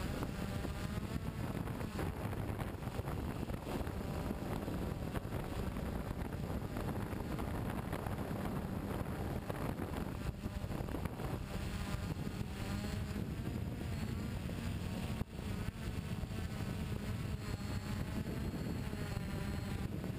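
Radio-controlled racing car's motor running and revving, its pitch rising and falling repeatedly as it drives the track, with wind noise on the onboard microphone.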